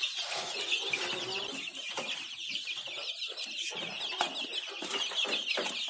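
A brood of chicks peeping: a continuous, overlapping mass of short high-pitched cheeps, with a few light knocks from a plastic chick feeder being handled and set down.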